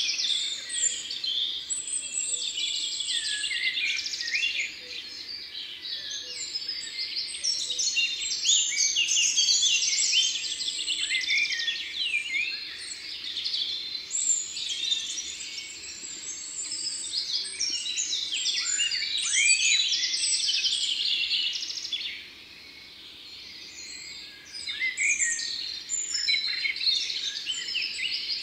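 Several songbirds singing and calling over one another in a dense chorus of whistles and fast trills, easing off briefly about three-quarters of the way through.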